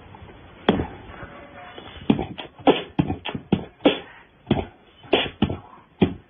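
A beat of sharp percussive knocks: a single hit, then from about two seconds in a fairly regular run of about two to three hits a second, in the manner of beatboxing.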